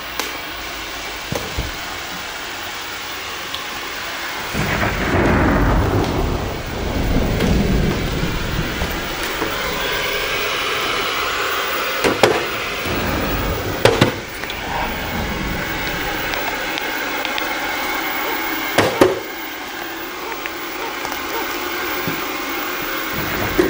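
A steady rushing noise with a low, rolling rumble that starts about five seconds in and lasts a few seconds. A few sharp knocks come near the middle and later on.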